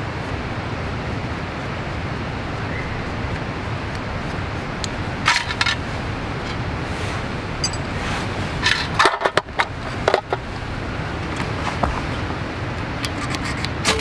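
Small metal tin and its contents being handled: short clusters of light metallic clicks and scrapes over a steady background hiss. Near the end come a few quick scrapes of a ferro rod throwing sparks onto a lip-balm-soaked cotton puff, which catches.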